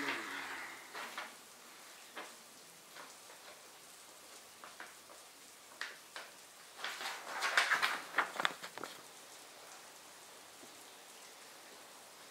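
A sheet of paper rustling as it is handled, then scattered light clicks and a burst of quick scratching, like a pen writing on paper, about seven seconds in.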